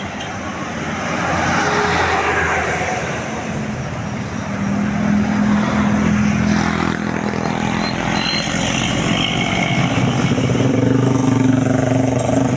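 Large vehicle engine running close by, most likely a bus. Its steady drone comes in strongly about four or five seconds in and grows louder toward the end, over road traffic noise.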